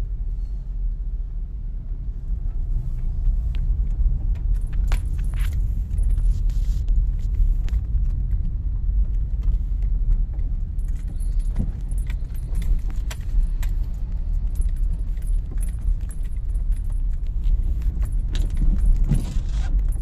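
Steady low road rumble inside a moving car, with short clicks and jangling rattles, like keys, as it jolts over a potholed road.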